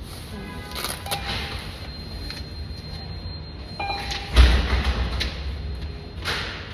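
A single heavy thump about four and a half seconds in, over a steady low rumble, with a few faint short tones before it.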